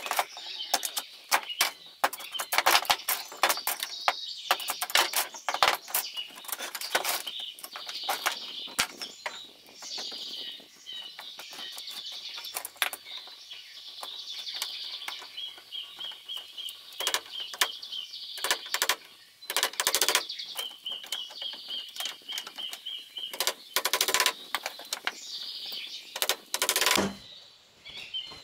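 Rapid, irregular knocking and clattering in clusters, with birds chirping throughout and a fast, evenly pulsed trill heard twice in the middle.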